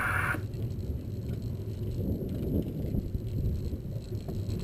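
Light aircraft in the cockpit as it taxis. A higher droning tone cuts off about half a second in, leaving a steady low rumble.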